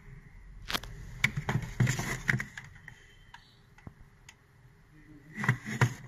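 Hands handling a plastic PLC expansion module (a Mitsubishi FX2N-4AD-PT) and its cable: a run of clicks and rustles about a second in, a few light ticks, then two sharp clicks near the end.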